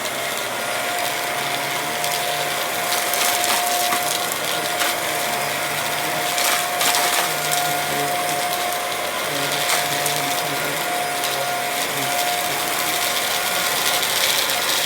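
Hoover WindTunnel3 upright vacuum cleaner running steadily, its motor giving a constant high whine over a rushing of air and an uneven mechanical rattle.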